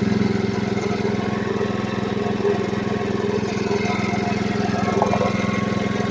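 A Honda single-cylinder pressure-washer engine running steadily with no load, its pump removed from the output shaft.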